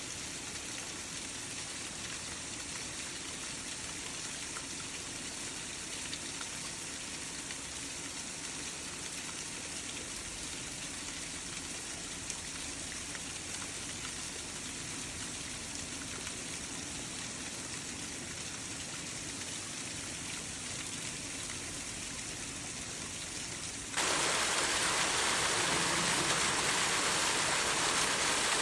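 Roadside waterfall: a steady rush of falling water. Near the end it changes abruptly to a louder, hissier rush.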